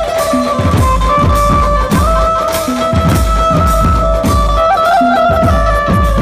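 Dhumal band music played loud: deep, heavy drum beats under a held melody line that steps from note to note.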